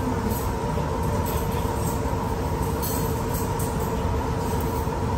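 Steady low rumbling background noise with a constant hum, typical of a restaurant dining room.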